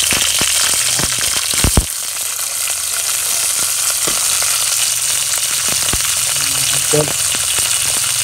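Garlic and crabs frying in hot oil in a steel pan: a steady sizzle with scattered sharp pops and knocks, the strongest a little under two seconds in.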